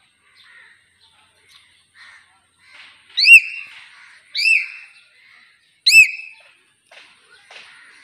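Hill myna giving three loud whistles a little over a second apart, each note arching up and down in pitch and then trailing off on a level tone, with faint short calls between them.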